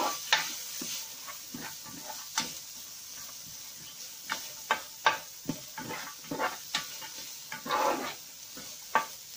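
Rice and carrots stir-frying in a pan: a steady sizzle, with irregular scrapes and clicks of the stirring utensil against the pan.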